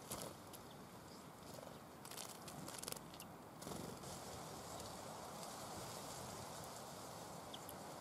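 A great tit splashing and fluttering its wings in a shallow bird bath, in short crackly bursts just after the start and again about two seconds in, over a faint steady hiss. A single short high note comes near the end.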